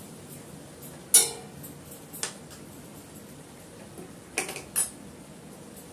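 A metal ladle knocking against a kadai: a sharp clang with a short ring about a second in, then a lighter tap about a second later. Two quick clicks follow near the end.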